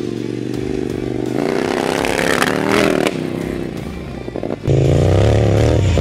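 KTM LC8 V-twin motorcycle engine in an off-road kart, revving up and down as the kart drives on dirt. About three-quarters of the way through it becomes suddenly louder and steadier, heard up close from on board.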